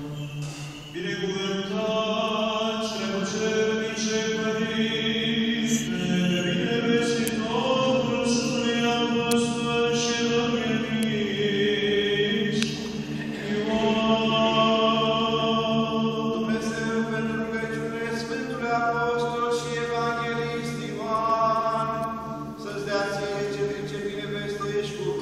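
Eastern Orthodox liturgical chant: voices sing a slow, melismatic line in long held notes over a steady low drone, echoing in the church.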